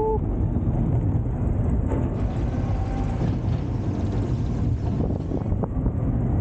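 Crazy Mouse spinning coaster car running along its steel track: a steady low rumble of the wheels on the rails, with some wind on the microphone.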